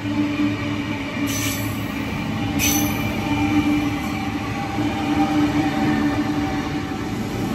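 Sydney double-deck electric passenger trains running past close by: a steady rumble of wheels on rail with a sustained whining squeal over it. Two short hisses come about a second and two and a half seconds in.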